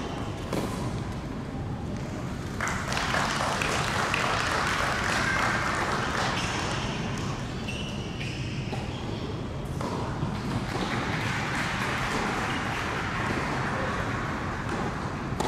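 Tennis ball struck and bounced on an indoor hard court during a point, followed by several seconds of spectators clapping and crowd noise after the point is won, then more ball bounces as the next serve is readied.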